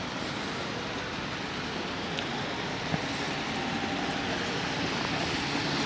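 Train running with a steady rumble that grows gradually louder.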